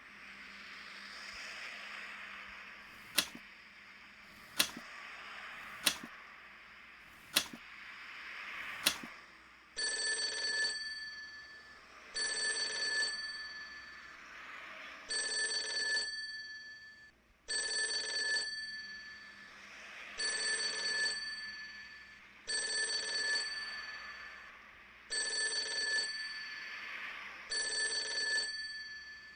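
Five sharp clicks about a second and a half apart, then a telephone bell ringing over and over, eight rings of about a second each.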